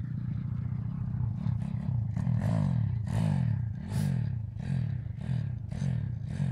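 Stomp Racing 140cc YX pitbike's single-cylinder four-stroke engine revving again and again, rising and falling in pitch about every half second.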